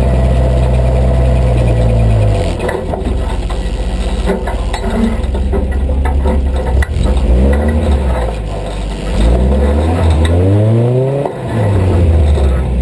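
An engine running with a steady low hum, then revving up in rising sweeps in the second half, each rise dropping back down.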